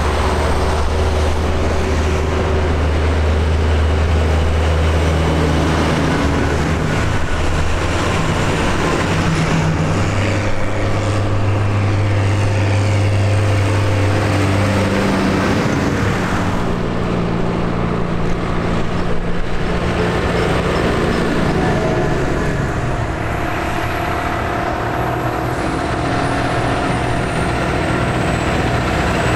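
Diesel engines of farm tractors driving past one after another on a road, a steady low drone that shifts in pitch as each one goes by.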